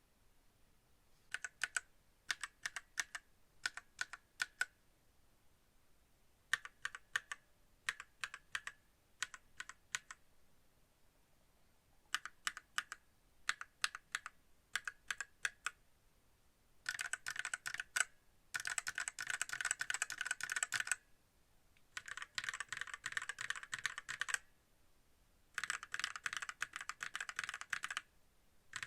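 Mechanical keyboard with red linear switches being typed on: first small groups of separate keystrokes with pauses between them, then several runs of fast continuous typing in the second half.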